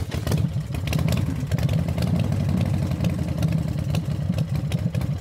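Motorcycle engine idling, a steady low rumble with a rapid clatter, starting abruptly.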